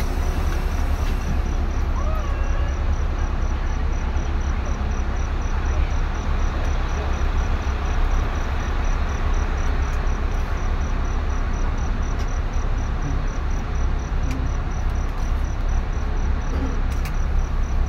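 Steady low rumble of a vehicle on the move, with a cricket chirping evenly, several times a second.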